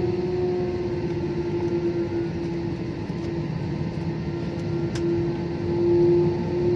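Airliner jet engines and airflow heard from inside the passenger cabin as the plane rolls on the ground: a steady drone with a held humming tone, swelling slightly near the end.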